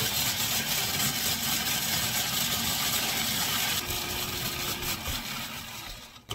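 Food processor motor running at speed, its blade grinding oven-dried, brittle slices into powder with a loud rattling whir. The sound thins about four seconds in, then the motor winds down and stops near the end.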